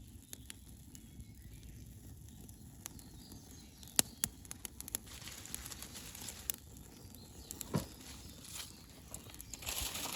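Small wood campfire crackling, with sharp pops of burning wood and brief rushes of hiss.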